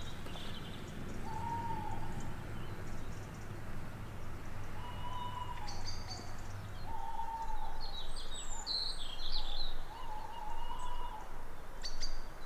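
Birds calling in the dawn chorus: four short, even mid-pitched notes spaced a couple of seconds apart, with higher, quicker songbird chirps in between.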